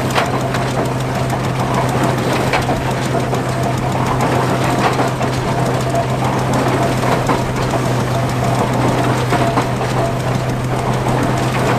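Belt-driven stationary straw baler running, its mechanism clattering with irregular knocks over the steady hum of the vintage tractor engine that drives it through a flat belt.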